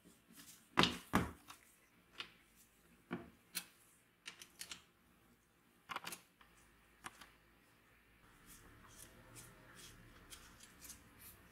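Metal tools clicking and clinking against a rusty corking machine's parts as pliers and a socket work its nuts and bolts. Irregular sharp clicks, the loudest two about a second in, with fainter ticks toward the end.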